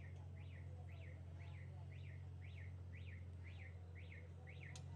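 A steady low hum with a short, high chirp repeating evenly about twice a second over it.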